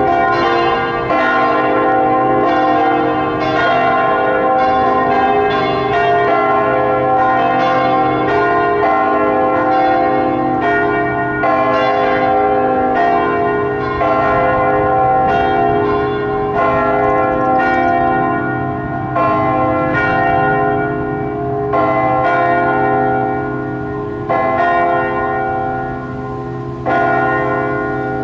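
Several church bells ringing together, their strokes overlapping in a continuous wash of ringing tones. In the second half the strokes thin out to one every two or three seconds as the ringing slows.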